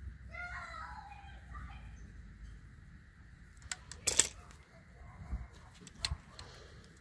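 A bird chirps briefly in the first two seconds. Then come a few sharp clicks and one loud clack about four seconds in, with smaller knocks after it, from the spoiler's hydraulic line and cylinder being handled on the bench during bleeding.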